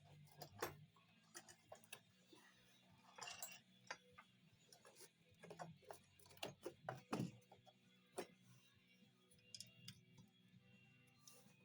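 Faint, scattered clicks and light knocks of small parts being handled during work on a rear wiper motor, a small flurry of them a little past the middle, over a low steady hum.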